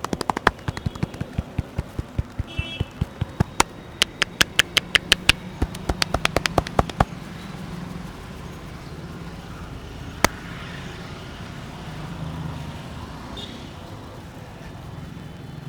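Percussive head-massage strokes: a fast run of sharp hand slaps and claps, about four a second at their quickest, that stops about seven seconds in. One more single sharp snap follows a few seconds later, over a steady hum of passing traffic.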